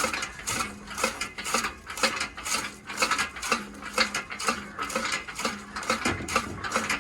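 Homemade desi machine running with a rhythmic metallic clatter, about two clanks a second.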